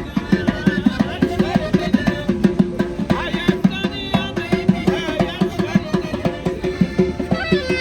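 Music with a fast, steady drum beat, about five beats a second, under a melody that bends up and down in pitch.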